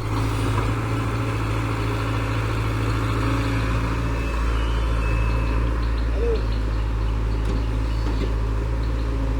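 A heavy machine's diesel engine running at a steady speed: a constant low drone with no change in revs.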